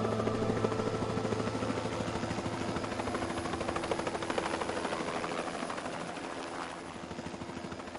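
Background music: held synth chords over a fast, even pulsing beat, slowly getting quieter and then stopping at the end.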